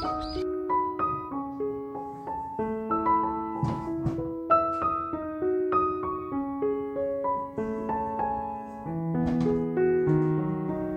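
Background piano music: a melody of single notes over sustained lower notes, with a few light clicks under it.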